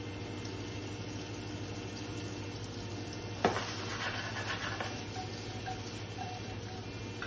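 Cut asparagus sizzling in butter in a frying pan over a steady low hum, with a sharp knock of the metal pan about three and a half seconds in as it is lifted and tossed.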